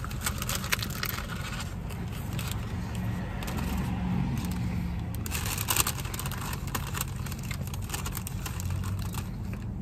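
Hard-shell taco being bitten and chewed: crisp crunching in clusters, strongest about a second in and again near the middle, over a steady low hum in a car's cabin.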